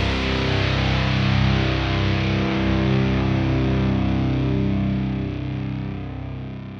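Closing chord of a heavy rock song: distorted electric guitar held and ringing, fading out over the last couple of seconds.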